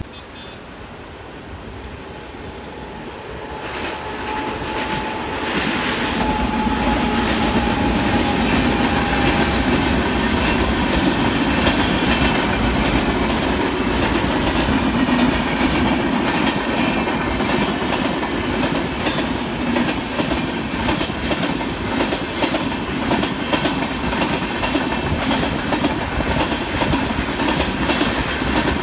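Indian Railways express with LHB coaches passing close by at speed, wheels clattering rapidly over the rail joints in a steady rush. The sound builds over the first few seconds as the train arrives, then holds loud.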